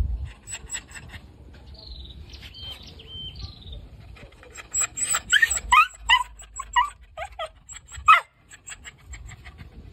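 Shaggy long-haired dog whining in a string of short, high, rising whimpers and yips, about half a dozen between about five and eight seconds in. The dog is shut behind a wooden fence that it cannot get through.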